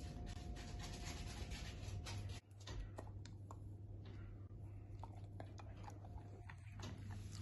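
Quiet handling noise: faint scattered clicks and scratches over a steady low hum.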